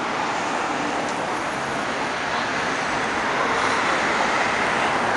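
Steady city road traffic: cars and vans driving past close by, a continuous hiss of tyres and engines.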